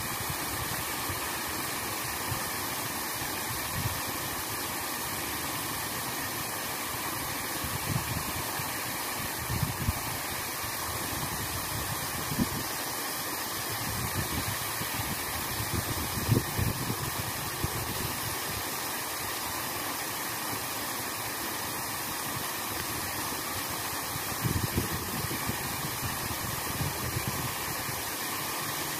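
Steady rushing of river water pouring over a small weir, with scattered low thumps of wind on the microphone, the strongest about halfway through.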